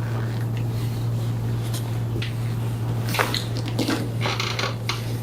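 Spinal joints cracking under a chiropractic adjustment: one sharp crack about three seconds in, then about a second of smaller crackles and rustling. A steady low hum runs underneath.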